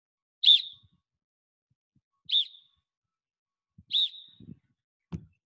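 Three short blasts on a coach's whistle, a little under two seconds apart, each the cue for players to snap-twist their lacrosse sticks in a draw drill.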